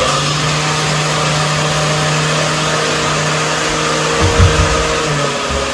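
A kitchen appliance's motor running with a steady hum, its pitch dropping slightly about five seconds in.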